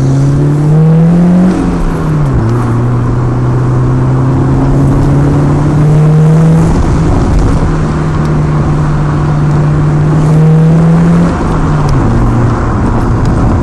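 A vehicle engine idling and being revved twice. Each time the pitch rises, holds steady for several seconds, then drops back to idle.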